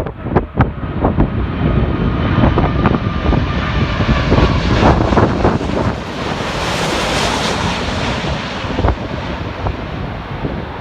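Jet airliner on landing approach passing overhead, its engine noise swelling to a peak about seven seconds in and then fading. Gusty wind thumps on the microphone during the first three seconds.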